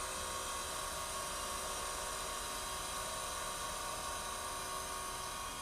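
Taft Peirce Model 200 surface grinder's spindle running steadily, a quiet, even machine hum made of several steady tones.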